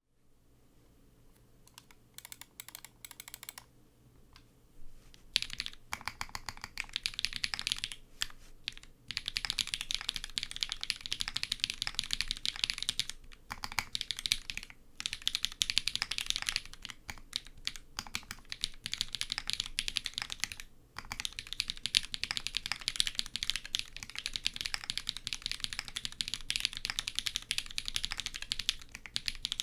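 Typing on a Merisi Dodici custom mechanical keyboard with lubed Cherry BCP switches, a full carbon-fibre plate and GMK keycaps. It starts with a few scattered keystrokes, then turns into continuous fast typing from about five seconds in, with a couple of brief pauses.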